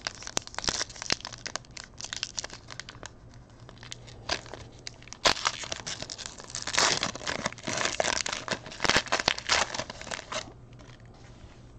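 Foil wrappers of 2019 Panini Illusions football card packs crinkling and tearing as the packs are opened by hand, with many small clicks and rustles of the cards being handled.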